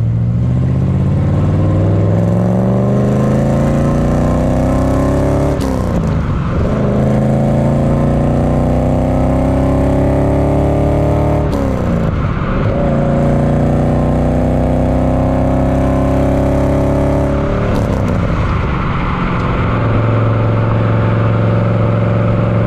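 The 1967 Bizzarrini 5300 Strada's Corvette V8 accelerating through the gears: the engine note climbs in pitch, drops at three upshifts about six, twelve and seventeen seconds in, then holds at a steady cruise.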